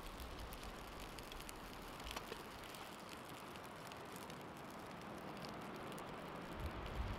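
Faint, steady outdoor hiss with scattered light ticks and some low wind rumble near the start and end.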